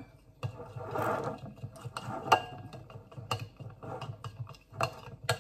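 Metal spoon stirring a small amount of liquid salad dressing in a ceramic bowl: a quick, rhythmic scraping against the bowl, with a few sharper clinks.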